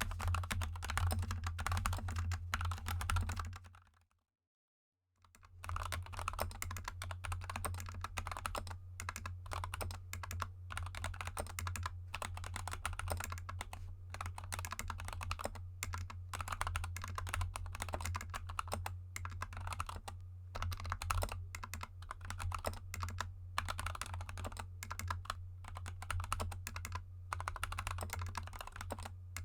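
Fast continuous typing on a GK64 mechanical keyboard with lubed Gateron Yellow linear switches and XDA keycaps, a dense run of key clacks. It stops dead for about a second, roughly four seconds in, then resumes. A steady low hum lies under it.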